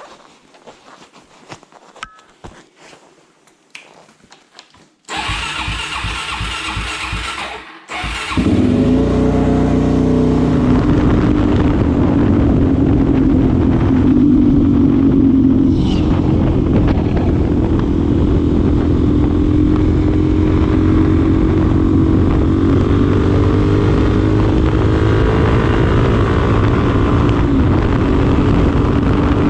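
A few faint clicks, then the 2025 Suzuki DR-Z4SM's single-cylinder engine is cranked for a few seconds, catches about eight seconds in, and settles into a steady idle.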